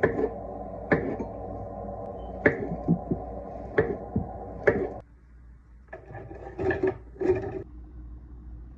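Kitchen clatter of snack preparation: sharp knocks and clacks of things being set down or tapped on a hard surface, about one a second, over a steady hum that stops about five seconds in. A short, louder burst of clatter follows near the end.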